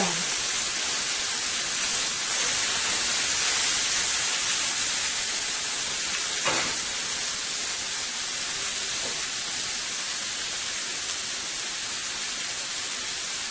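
Porterhouse steak sizzling steadily on a hot grill pan, with one brief faint tick about halfway through.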